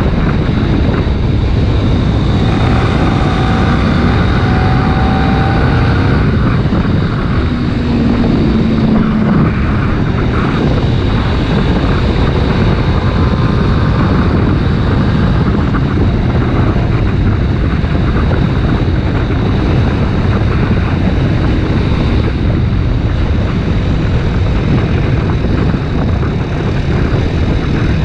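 Kawasaki Ninja 250RR Mono's single-cylinder four-stroke engine running at speed, buried under heavy wind rushing over the camera's microphone.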